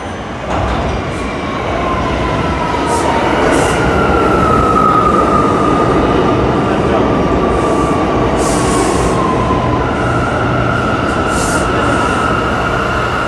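New York City subway train pulling into the station: the rumble of the stainless-steel cars rolls in and grows louder as they pass close, with a whine that glides down in pitch as the train slows, then holds steady near the end.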